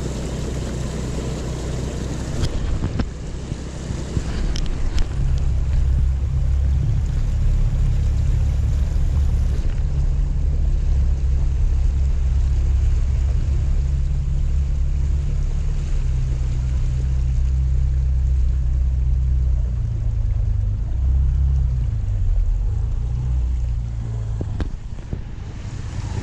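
Motor scooter's small engine running steadily as it pushes through deep floodwater, with a continuous rushing splash of water against its front and wind on the microphone. The engine note shifts up and down near the end.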